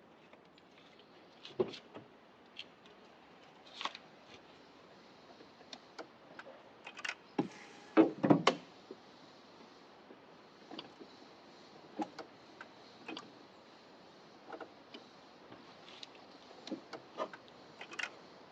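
Scattered light clicks and knocks of parts and tools being handled during wiper motor and linkage work, with a louder run of knocks about seven to eight and a half seconds in.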